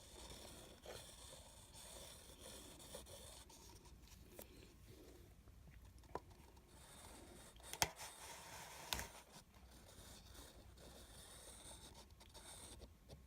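Near silence with faint scraping and rustling handling noises and a few light sharp taps, the loudest about eight and nine seconds in.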